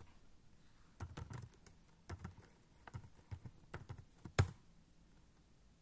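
Computer keyboard typing: scattered keystrokes, then one louder key press, the Enter key, about four and a half seconds in.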